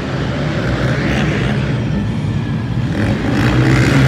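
Quad ATV engines running and revving as several ATVs race on a dirt track in an indoor arena, the engine note rising near the end.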